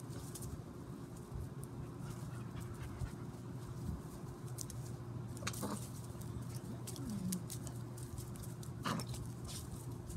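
Dalmatian puppy breathing and sniffing, with scattered short rustles and clicks, over a steady low hum.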